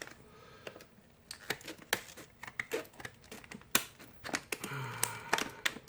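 Scissors cutting open a padlock's hard plastic blister pack: a run of irregular sharp clicks and snips with plastic crinkling, one louder snap about four seconds in.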